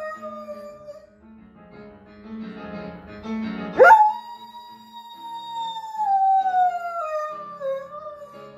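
Dog howling. One long howl slowly falls in pitch and trails off about a second in. Near four seconds a quick upward swoop starts a second long howl that holds, then slowly sinks.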